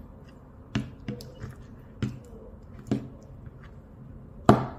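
A metal spoon stirring thick yogurt and blueberries in a plastic bowl: a handful of soft clicks and knocks as the spoon strikes the bowl, the loudest near the end.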